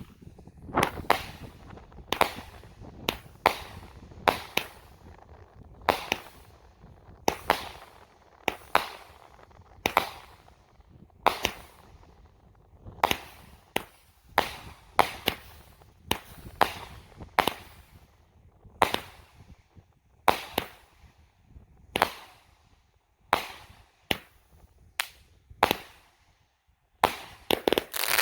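200-gram, 25-shot consumer fireworks cake firing its shots in sequence: a steady run of sharp pops and bangs, roughly one to two a second, many coming as a launch thump closely followed by the break.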